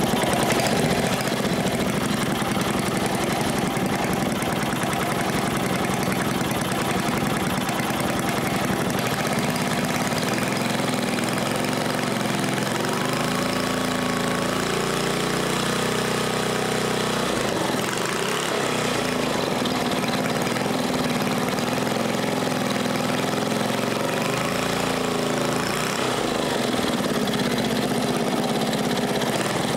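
A 5 hp Briggs & Stratton single-cylinder flathead engine running with no governor, its speed set by hand at the throttle linkage. It runs steadily, and its pitch rises and falls a few times partway through and again later as the throttle is moved. At idle it turns about 1700 rpm, a little under the 1800 it should.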